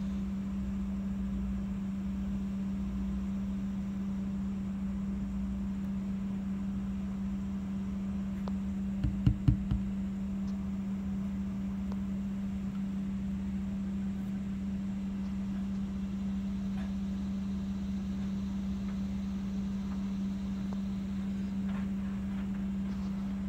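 A steady low machine hum on one constant tone, with a quick run of three or four knocks about nine seconds in.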